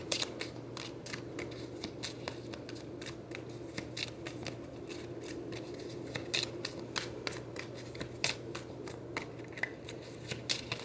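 A deck of tarot cards being shuffled by hand: a stream of irregular light clicks and snaps as the cards slide and strike against each other.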